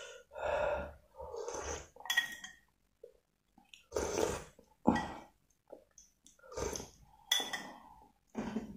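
A metal spoon clinking and scraping against a soup bowl as broth is scooped up, with slurping sips from the spoon, in a string of short bursts with brief pauses between them.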